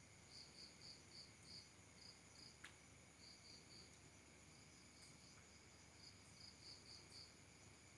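Faint night insects: a cricket chirping in runs of short pulses, about three a second, over a steady high buzz of other insects. One sharp click about halfway through.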